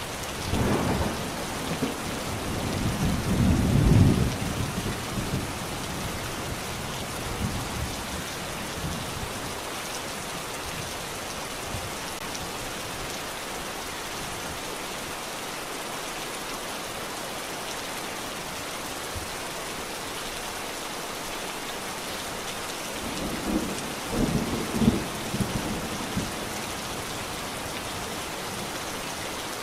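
Steady rain hiss with two rolls of thunder: one building over the first few seconds and peaking about four seconds in, and a shorter one about five seconds before the end.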